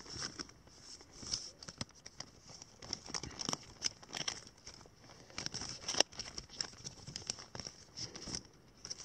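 Irregular rustling and crinkling with light clicks and taps as a 45 rpm record's paper sleeve and packaging are handled and slid back together. One sharper tick comes about six seconds in.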